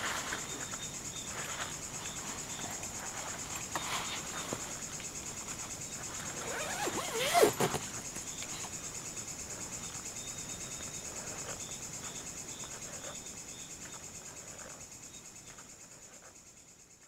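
Night insects chirring steadily in a high, pulsing drone, with a second fainter pulsed chirp beneath it. A brief rustle of the hammock about seven seconds in is the loudest moment, and the chorus fades out near the end.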